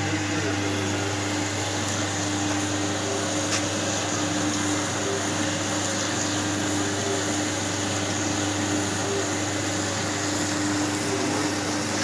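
Steady hiss and hum of a steam-boiler khoa-making machine running, with a constant low hum and a steady mid-pitched tone under an even hiss.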